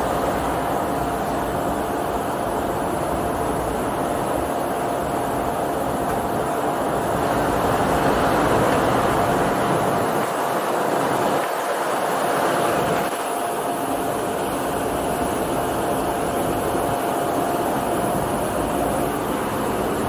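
Cabin noise of a jump plane in flight: a steady, loud engine drone and rushing air, with a constant high whine running through it.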